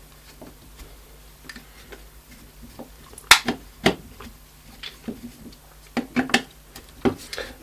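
Irregular clicks and taps of a small screwdriver and hands working on the plastic case of a cordless-drill battery pack, undoing its screws to open it, the two loudest clicks a little past the middle.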